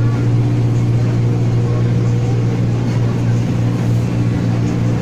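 Former JR East Nambu Line 205 series electric commuter train running at speed, heard from inside the car: a loud, steady low hum over the even rumble of the wheels on the rails.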